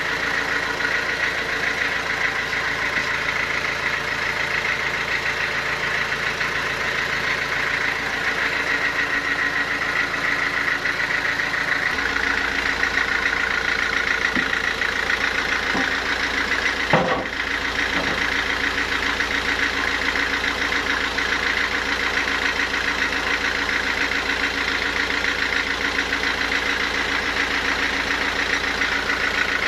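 Sawmill machinery running steadily. Partway through, its low hum gets louder, and a little past halfway there is a single sharp knock.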